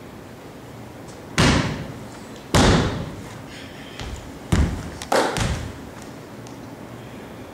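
Foot stomps on a hard floor during a Chen-style tai chi form: four loud thuds, one to two seconds apart, with a fainter one between the second and third, each dying away briefly.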